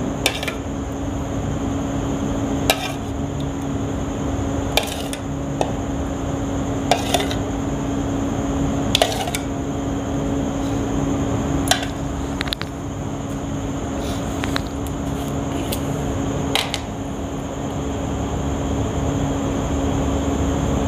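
Metal spoon scooping thick yogurt out of a bowl and tapping it onto the salad, clinking against the bowl rims about every two seconds, with the clinks stopping near the end. A steady hum runs underneath.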